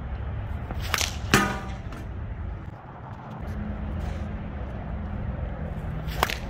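A sling shot: a quick snap as the sling is released about a second in, then a sharp impact of the ball striking the target about a third of a second later, with a brief ringing. Near the end comes another release snap, over a steady low rumble.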